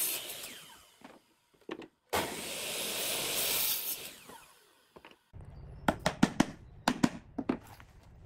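Compound miter saw cutting through a wooden board twice: each cut is a loud rush of blade and motor noise, the second lasting about two seconds and dying away as the blade spins down. After that come about six sharp knocks of a claw hammer striking nails into wood.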